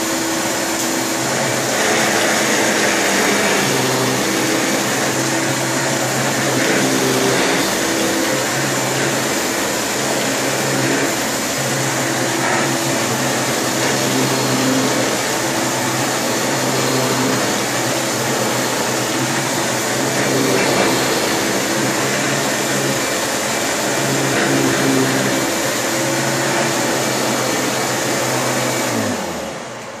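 Hoover Supreme Power Drive upright vacuum cleaner running steadily while it picks up shredded paper from carpet. Near the end it is switched off and its motor spins down with a falling whine.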